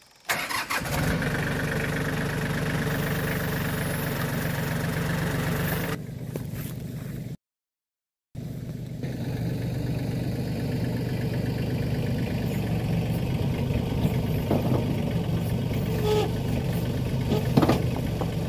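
LS compact tractor's diesel engine starting abruptly and then running steadily. The sound cuts out for about a second midway, then the engine runs on under the front loader, with a few sharp knocks near the end as the loaded bucket tips.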